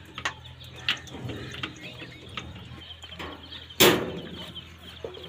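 Hand-greasing a Hino truck's chassis fittings with a lever grease gun: scattered metal clicks and knocks, with one loud sharp clack about four seconds in, over a low steady hum.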